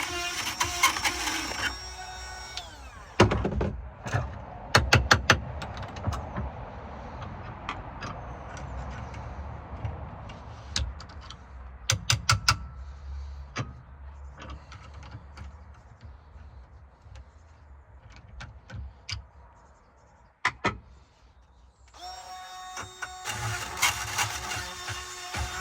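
Power drill with a burr bit running against a lock cylinder for about two seconds, then stopping; a long stretch of scattered knocks and clicks follows, and the drill runs again near the end.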